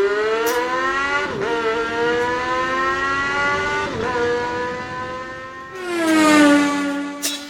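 Race-car engine sound accelerating through the gears: the pitch climbs, drops at two upshifts about one and a half and four seconds in, and climbs again. Near the end it settles into a louder, steady, lower drone, then cuts off suddenly.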